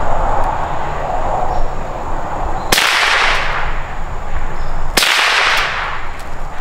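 Two gunshots about two seconds apart, each a sharp crack followed by a hissing echo that fades over about a second, fired at a squirrel in the treetops.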